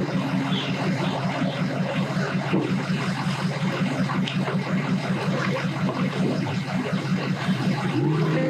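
An engine idling steadily with an even, pulsing low throb, under a constant broad hiss.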